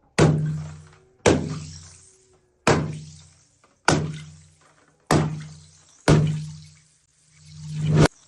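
Edited-in impact sound effects: six sharp booming hits about a second apart, each with a low pitched ring that fades over about a second, then one reversed hit that swells up and cuts off sharply near the end.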